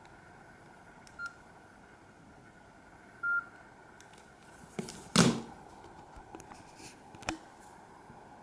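Two short, single-pitch beeps of a Nokia E66 mobile phone's key tones, the second slightly longer. These are followed about five seconds in by a louder knock and clatter of handling, and a single click a couple of seconds later.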